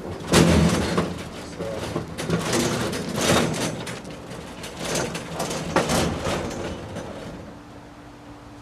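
An empty Snap-on steel tool box, its drawers removed, being rolled and shoved: rumbling and scraping with several metal knocks and clunks, dying away about seven seconds in.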